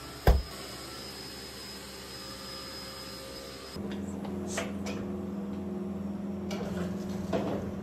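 A single sharp knock just after the start, then a steady electrical appliance hum. About four seconds in, the hum changes abruptly to a stronger, lower drone, with a few faint clicks and knocks.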